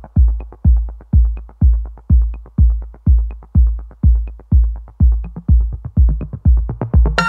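Electronic background music with a deep kick drum beating steadily about twice a second and faint higher percussion ticks between the beats.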